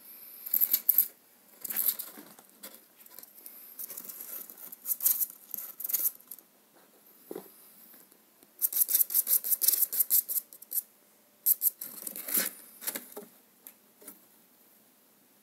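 Gerbils scratching and scrabbling about, in bursts of quick, sharp scratchy clicks with short pauses between. The longest, densest run comes about nine seconds in.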